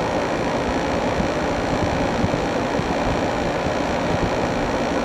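Window air conditioner running steadily: its fan blowing and compressor humming close by.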